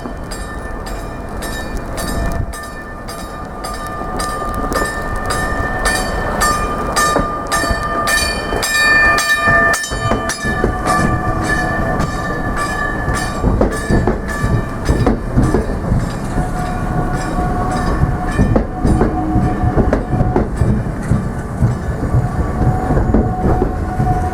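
A train passing close by, its wheels clicking evenly over rail joints at about two clicks a second. Steady high tones sit over a low rumble that grows louder in the second half.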